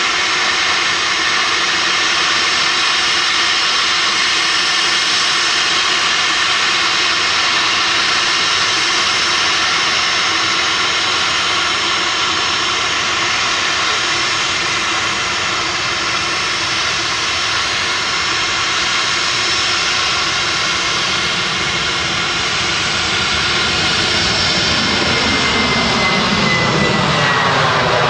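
Boeing 737-800's twin CFM56-7B turbofans running at takeoff thrust during the takeoff roll: a steady, loud jet noise with many whining fan tones. Near the end the tones drop in pitch as the airliner passes close by at rotation.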